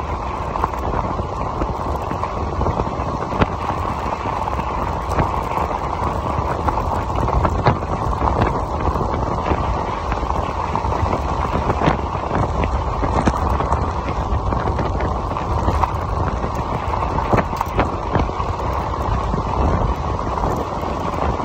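Voltbike Yukon 750 fat-tyre e-bike rolling along a gravel road: a steady low rumble of the tyres on loose gravel, with scattered sharp clicks of stones and small rattles.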